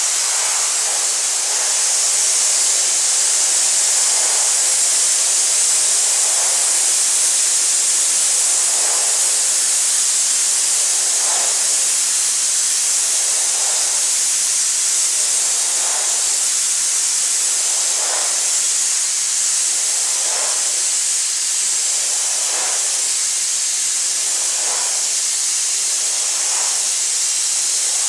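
Aerogommage blasting nozzle stripping the finish off a wooden chair: a steady, loud hiss of compressed air and abrasive, with fainter, lower swells about every two seconds.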